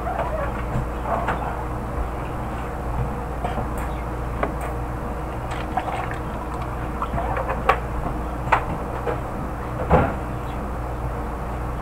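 Containers and bottles being moved about in an open refrigerator: a few sharp knocks and clinks in the second half, the loudest about ten seconds in, over a steady low hum.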